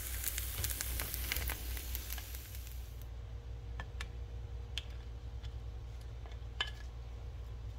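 Seitan steak sizzling and crackling in a frying pan, which cuts off abruptly about three seconds in. A few faint clicks follow over a low steady hum.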